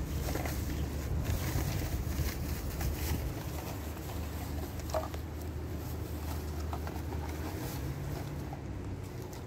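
A steady low hum, with light, irregular clicks over it and a brief high chirp about five seconds in.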